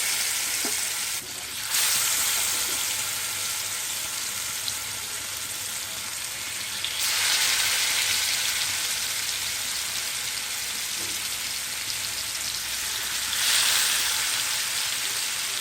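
Marinated fish pieces shallow-frying in hot coconut oil in a pan: a steady, hissing sizzle that swells louder about 7 seconds in and again near the end.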